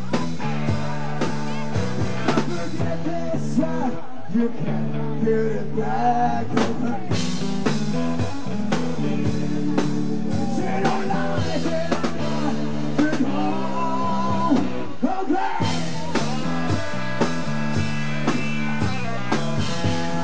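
Rock band playing live: distorted electric guitars, bass and a drum kit keeping a steady beat, with a singer's voice over them.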